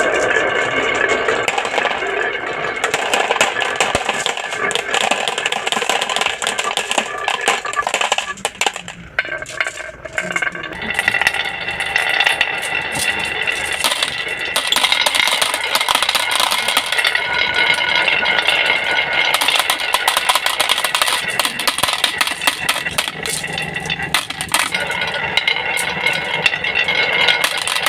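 Marbles rolling and clattering down a plastic marble run: a dense, rapid stream of clicks and rattles. About ten seconds in the sound changes abruptly, as if to a different track.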